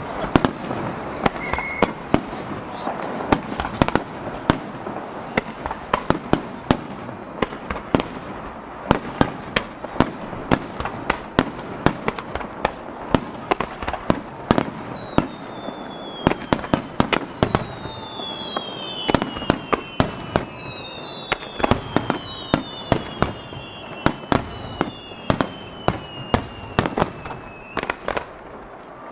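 Japanese star mine fireworks barrage: a dense, irregular run of sharp bangs and pops from shells launching and bursting. From about halfway through, several falling whistles overlap the bangs.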